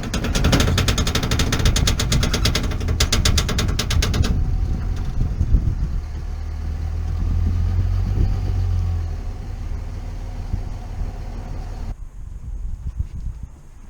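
Car engine running with a loud, rapid and even pulsing for about the first four seconds, then settling to a lower, steadier rumble with a low hum; the sound changes abruptly near the end.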